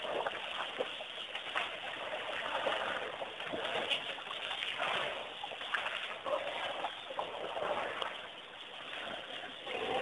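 Muddy water splashing and sloshing as a baby African elephant rolls and wallows in a waterhole, with many small irregular splats.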